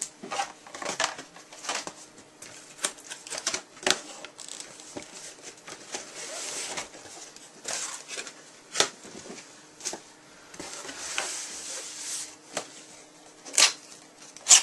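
Packaging being handled: irregular clicks and taps, with two stretches of rustling from cardboard and plastic being opened and moved.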